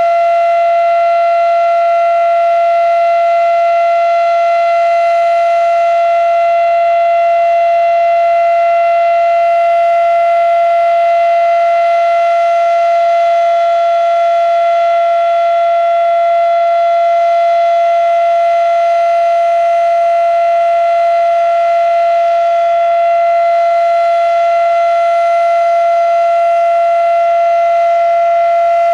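Fedelcode Model 7 outdoor warning siren sounding its steady alert: one loud, unwavering high tone held without rising or falling.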